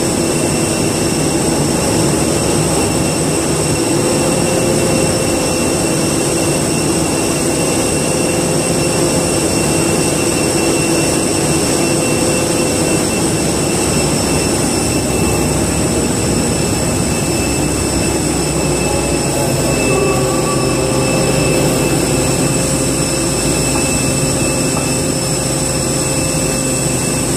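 Airbus A320 turbofan engines running at idle with a steady high whine, over the lower steady rumble of the pushback tug's engine.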